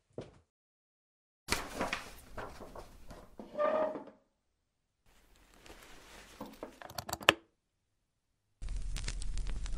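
Sound effects of a vinyl record being handled: papery rustling and sliding in two stretches, the second ending in a few sharp clicks. Near the end a steady hum and hiss starts as a record player is switched on.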